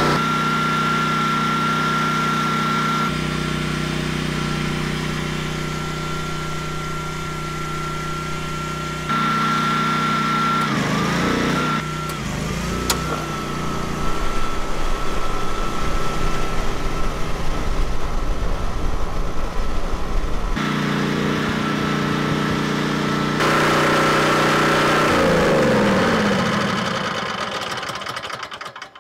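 Champion 12,000 W generator's V-twin engine running steadily. About ten seconds in its note sags briefly and recovers as the load comes on, and for a while the air conditioner's outdoor unit is heard running on generator power. Near the end the engine is shut off and winds down to a stop.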